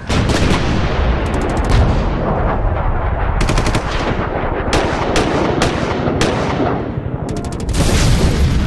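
Rapid machine-gun fire sound effect, shots rattling off in fast continuous bursts and growing louder near the end.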